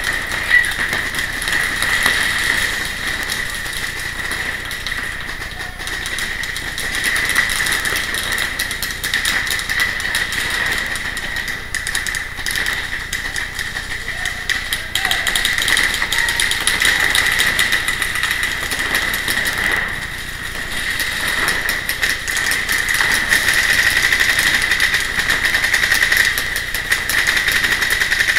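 Many paintball markers firing fast and without let-up, the shots running together into a steady rattle.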